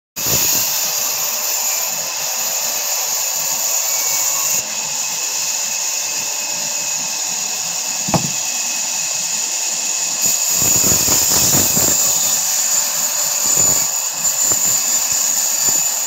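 Sawmill band saw running with a steady high whine as its blade cuts through a log section being fed by hand. There is a sharp knock about eight seconds in, and the cutting noise grows louder and rougher between about ten and twelve seconds.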